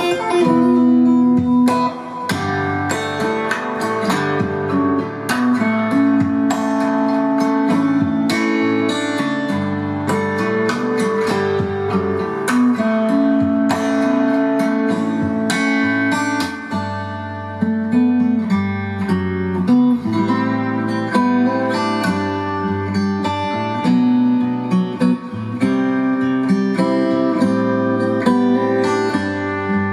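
Acoustic guitar music: plucked notes and strummed chords, playing continuously.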